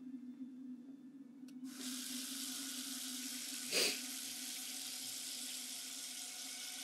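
Water running from a bathroom tap into a sink, switching on abruptly a couple of seconds in and running steadily, with one brief louder burst near the middle.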